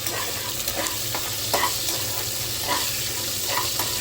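Whole spices with cumin and fennel seeds sizzling in hot oil and ghee in a pressure pan, a steady hiss with a few short crackles about once a second as the seeds splutter.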